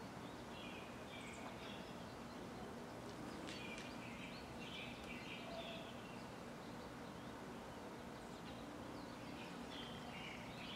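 Short bursts of bird chirping, three times, over a steady outdoor hiss.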